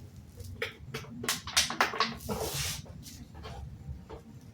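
Scattered light clicks and knocks of mower parts and tools being handled on a workbench during reassembly, with a brief rustle about two and a half seconds in.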